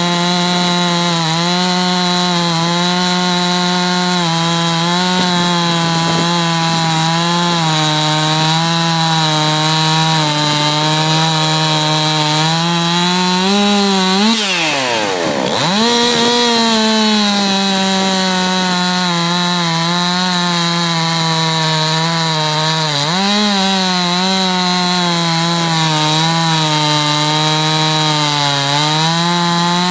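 Stihl MS 362 C-M two-stroke chainsaw cutting through a log at full throttle, its engine pitch held high and steady under load. About halfway through, the pitch climbs, drops sharply as the throttle is let off, and comes straight back up as it goes into the cut again; a smaller climb follows later.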